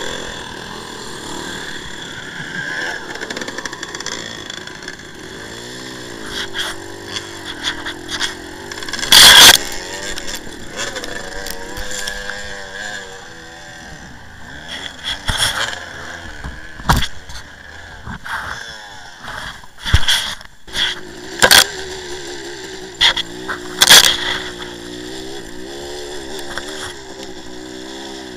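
1984 Suzuki TS185's single-cylinder two-stroke engine running, its revs rising and falling, broken by several sharp loud knocks, the loudest about nine seconds in.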